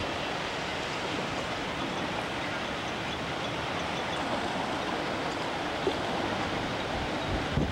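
Steady rush of hurricane wind over whitecapped water. A few low blasts of gusts hit the microphone near the end.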